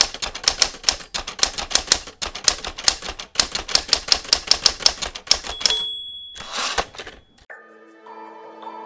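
Typewriter sound effect: rapid keystroke clacks for several seconds, then a single bell ding and a short carriage-return sweep. Soft sustained music begins about a second before the end.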